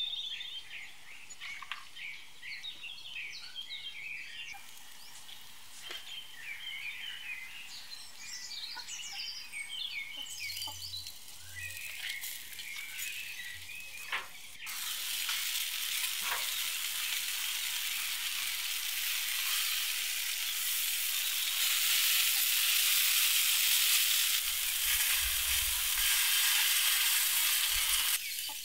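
Birds singing, with a few faint clicks. About halfway through, this gives way to a steady, louder sizzling of stuffed bell peppers grilling on a grate.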